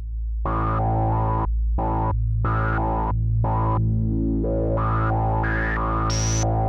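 Novation Bass Station II analog synthesizer playing: a held deep bass note under a rhythmic run of short notes, each with a bright resonant filter peak. The peak climbs much higher over the last couple of seconds.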